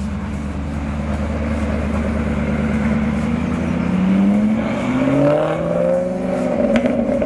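Car engine running steadily, then pulling away from about three seconds in: the pitch climbs, drops back and climbs again, as at a gear change.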